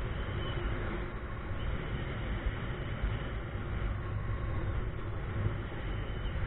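Wind rushing over a camera microphone in paraglider flight: a steady low rumble with gusty buffeting, and hiss above it.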